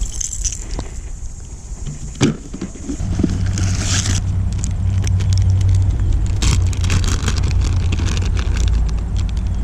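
A low, steady engine rumble from a passing motor vehicle sets in about three seconds in, with light clicks and rattles of fishing tackle being handled and one sharp click about two seconds in.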